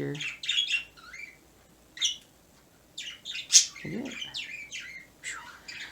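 Pet birds chirping and squawking in short calls, some gliding down in pitch, with a short lull early on before a busier run of calls.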